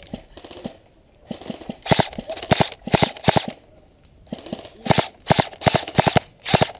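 Airsoft guns firing in repeated bursts of sharp pops, a few shots a second, with the busiest stretch near the end.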